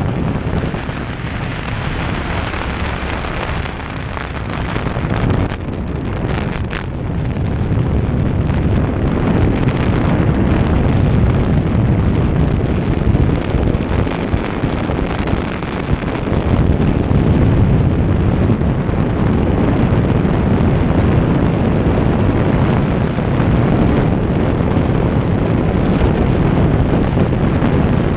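Jet boat running at speed: a loud, steady rush of engine and water with heavy wind buffeting the microphone.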